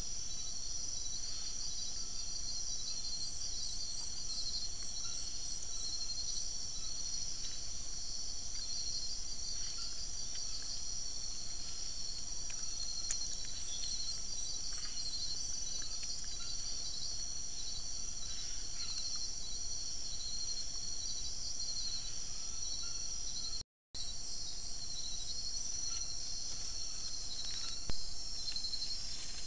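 Night insect chorus: a dense, steady, high-pitched pulsing trill from many insects, with faint scattered ticks and rustles. The sound cuts out for a moment about three-quarters of the way through, and a single sharp click comes near the end.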